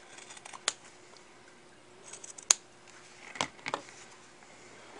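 Scissors snipping through fabric, cutting an inch square from the corner of a sewn coin purse: a few sharp, short snips, the loudest about halfway through.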